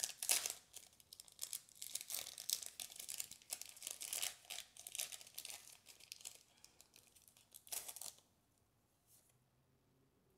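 Foil Pokémon trading card booster pack crinkling and tearing as it is ripped open by hand, a rapid run of crackles that stops about eight seconds in.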